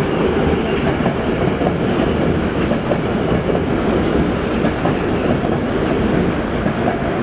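Electric commuter train running on the rails, a steady rumble with wheel clatter.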